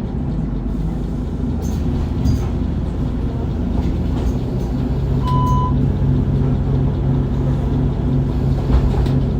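Mercedes-Benz Citaro (O530) CNG city bus with a ZF Ecomat automatic gearbox running steadily on the move, heard from inside the bus. A short beep sounds about five seconds in.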